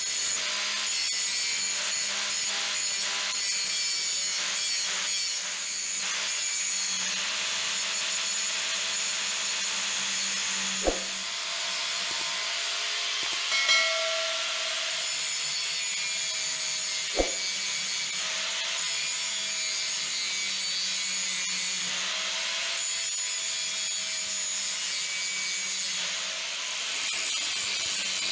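Angle grinder grinding a steel leaf-spring machete blank to shape: a steady, mostly high-pitched grinding hiss over the grinder motor's hum, with two sharp knocks, about 11 and 17 seconds in.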